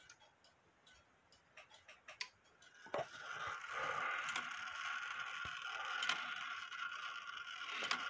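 Antique Ansonia clock movement: a few light clicks as its hands are turned. Then, about three seconds in, the strike is released from warning and a steady ringing tone starts, with a sharp strike every second or two.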